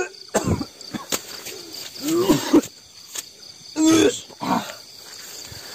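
A man groaning and crying out in several short, loud bursts with bending pitch, acting out a spirit being driven from his body. Crickets chirp steadily behind.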